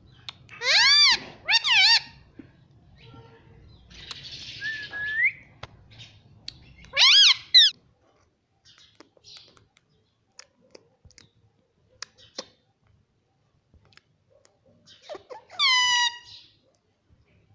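Indian ringneck parrot calling in loud, shrill squawks that swoop up and down in pitch: two about a second in, another around the middle, and a falling one near the end, with a short hissy sound ending in a rising whistle between them.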